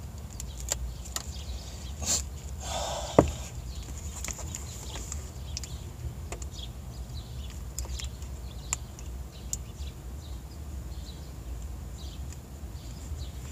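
Hands handling a small packet of grease and small switch parts: scattered light clicks and crinkles, with a louder rustle ending in a sharp click about three seconds in, over a low steady hum.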